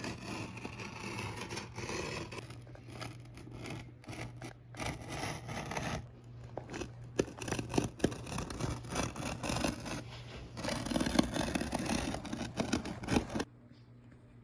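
Carpet on a plywood panel being cut open by hand, heard as irregular scratchy, rasping strokes over a steady low hum; the sound cuts off abruptly near the end.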